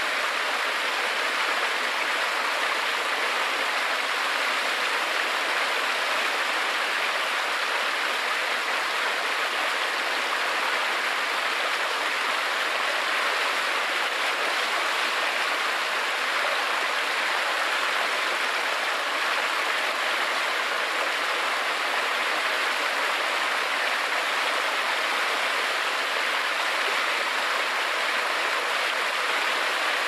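A small rocky cascade of stream water pouring into a foaming pool: a steady, unbroken rush of white water.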